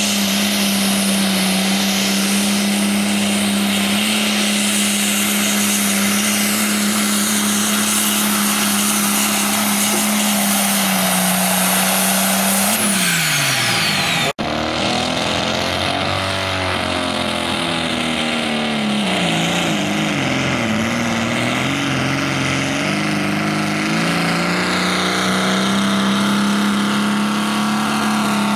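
Super stock pulling tractor engines at full throttle dragging the weight sled. A red International Harvester's engine holds a steady high pitch, then winds down near the middle. After a sudden cut, a green John Deere's engine pulls with its pitch sagging, recovering, and dropping off at the end.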